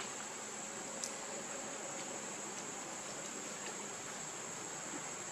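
Steady high-pitched drone of insects, with a few faint clicks, the sharpest about a second in.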